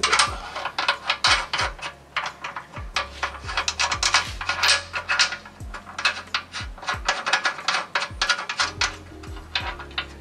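Rapid, irregular metallic clicking and scraping of hand work on the rear axle's bolts and spacers, in clusters with short gaps, over background music with a bass beat.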